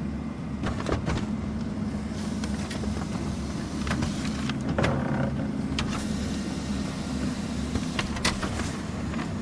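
Office printer running with a steady low motor hum, paper feeding through it with scattered sharp clicks. A short higher whirr comes about five seconds in.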